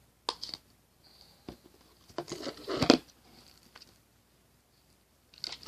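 A small plastic slime container being handled: scattered clicks and crinkling, the loudest about three seconds in.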